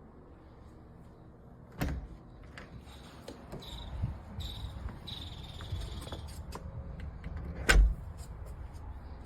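Clicks and knocks from handling a door fitted with a Sifely keypad smart deadbolt, with a sharp click a couple of seconds in, a faint high tone in the middle, and a loud thump near the end.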